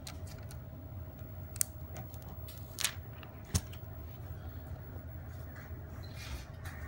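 A few sharp, isolated clicks and taps, handling sounds, over a low steady background hum.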